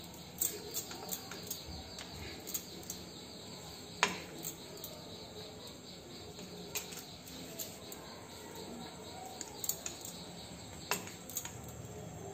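Quiet kitchen handling sounds of puri dough being rolled out: scattered light clicks and taps from a wooden rolling pin on the counter and clinking glass bangles. There is a sharper tap about four seconds in and another near the end.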